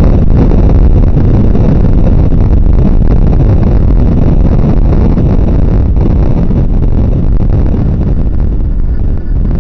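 Loud, steady low rumbling noise with no distinct events, like wind buffeting the microphone or distant heavy traffic.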